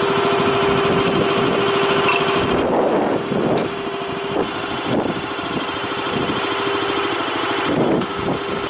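Small petrol engine on a cable drum trailer running steadily, a little quieter from about three seconds in.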